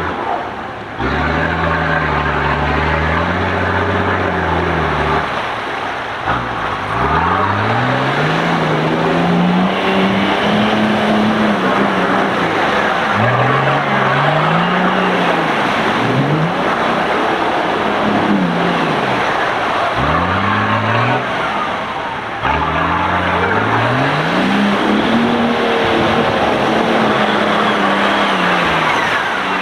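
Off-road 4x4 engines revving hard through deep mud and water, the engine note climbing and dropping again and again as the throttle is worked, over the churning splash of tyres spinning in the mud.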